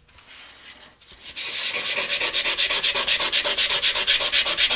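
Hand-sanding the outside of a fiberglass rocket coupler tube, scuffing its surface so the epoxied switch band will bond. After a second or so of quiet handling, fast, even back-and-forth scraping strokes start, about ten a second.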